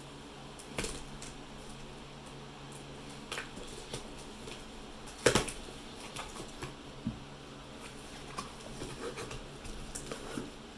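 Hands handling and opening a box of trading-card packs: scattered clicks and taps, with one sharper knock about five seconds in and a run of light ticks near the end, over a steady low hum.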